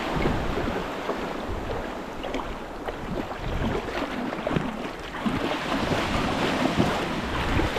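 Small waves washing onto the beach, with wind buffeting the microphone.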